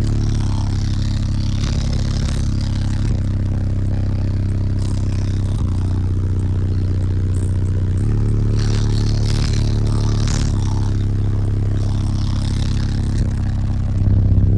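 Deep, loud bass notes from a six-subwoofer car-audio system (Sundown ZV5 15s) playing a demo, held steady with a noisy rattling buzz from the car coming and going over it.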